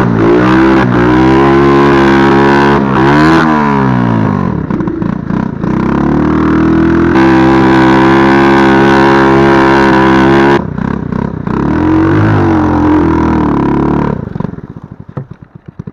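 110 cc single-cylinder four-stroke quad engine revving up and down under load as the quad is ridden, with throttle lifts about a third of the way in and again past halfway. Near the end it drops to a low, pulsing idle.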